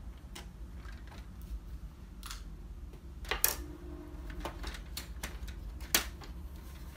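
Plastic clicks and knocks as the rear cover of an HP LaserJet 5200 printer is unclipped and pulled off, with two sharper snaps about three and a half and six seconds in.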